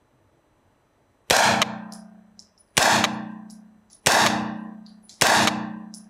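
Springfield Armory Saint Victor 9mm carbine fired four times, about one shot every 1.3 seconds, each sharp report trailing off in a long echo off the walls of an indoor range.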